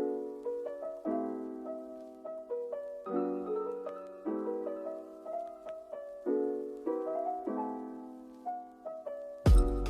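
Soft, slow piano background music with gently repeated chords. Near the end a sudden loud thump cuts in.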